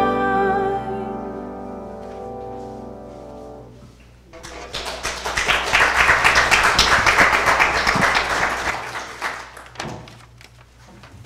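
A grand piano's final chord rings and fades away over about four seconds. Then applause starts, holds for several seconds and dies away near the end.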